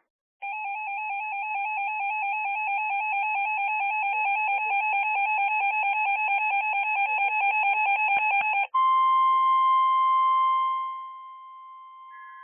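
An electronic alert tone warbling rapidly between two close pitches for about eight seconds. It switches abruptly to the steady single-pitch warning alarm tone of NOAA Weather Radio, which drops in level a couple of seconds later and ends just before the next warning bulletin.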